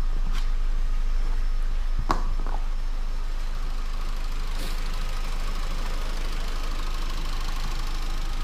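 Vauxhall Astra 1.4 petrol engine idling steadily after a timing chain replacement, with a couple of light clicks in the first two seconds.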